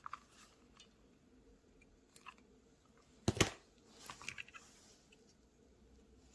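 Faint handling of a crinkly paper origami rose and a plastic CD as the rose is pressed on with hot glue, with one sharp knock a little over three seconds in and a soft rustle just after.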